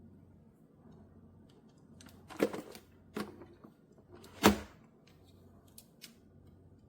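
A few separate sharp knocks and clicks, the two loudest about two and a half and four and a half seconds in, with smaller ticks between and after, over a quiet low hum.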